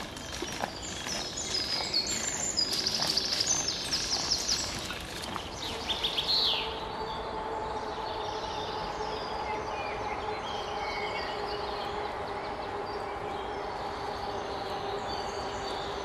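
Woodland birds singing and chirping, with light crackles of bare feet stepping on dry leaf litter in the first half. After about seven seconds a steady hum sets in under softer birdsong.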